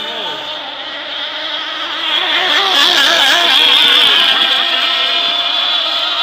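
Several radio-controlled racing hydroplanes running flat out, a high-pitched engine whine with several pitches wavering at once. It swells to its loudest partway through as one boat passes close.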